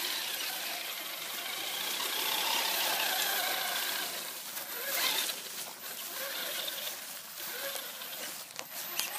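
Traxxas Stampede 4x4 RC monster truck driving over grass: its electric motor and drivetrain whine, the pitch rising and falling with the throttle, over tyre noise. A brief louder burst comes about five seconds in.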